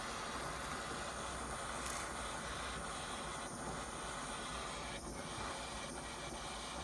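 Gas blowtorch flame hissing steadily as it heats a brass tray up to soldering temperature, with a few faint ticks.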